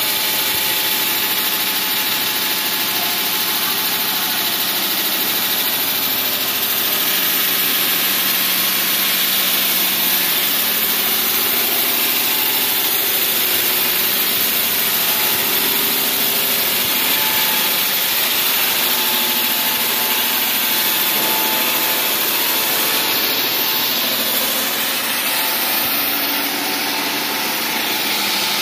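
Wall saw running steadily as it cuts through a wall: a loud, even machine noise with no breaks or changes.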